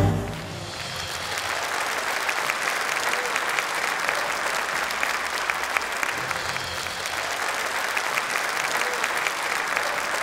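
Large audience applauding steadily: a dense, even clatter of many hands clapping. The band's last notes cut off just as it begins.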